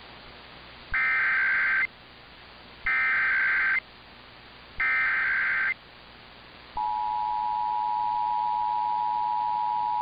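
Emergency Alert System SAME header: three roughly one-second bursts of high warbling data tones, about two seconds apart. Near seven seconds in, the steady two-tone EAS attention signal begins, marking the start of a Required Monthly Test. It is received over AM radio, with a faint hiss between the bursts.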